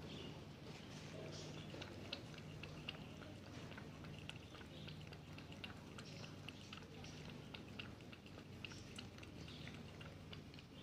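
Cat lapping milk from a shallow dish: a quick, steady run of small wet clicks as the tongue flicks into the milk.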